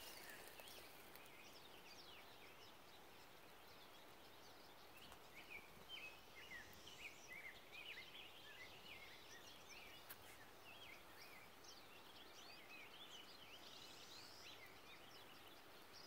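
Faint chirping and twittering of small songbirds, many short quick high notes that come thickest in the middle stretch.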